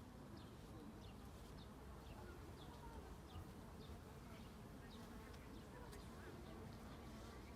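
Faint outdoor ambience with a steady low rumble, over which small birds give short high chirps every half second or so.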